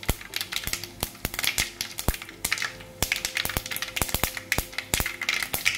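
Mustard seeds and whole spices spluttering in hot oil in a steel kadai: irregular sharp pops and crackles, several a second.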